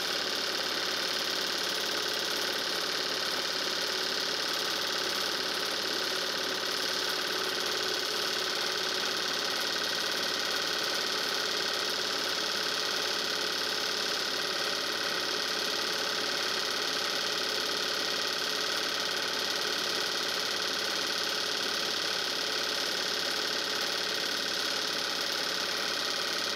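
8 mm film projector running steadily during digitization: an unbroken mechanical whirr from its motor and film transport.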